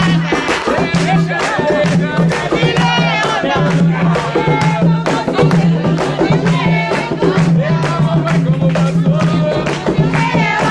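A group singing an Umbanda chant (ponto) to drums beating a steady, quick rhythm.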